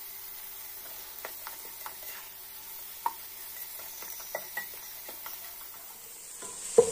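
Sliced onions and shallots sautéing in coconut oil in a nonstick pot, stirred with a spatula: a faint sizzle under light scrapes and taps of the spatula on the pan. A sharper tap comes about three seconds in and a louder knock just before the end.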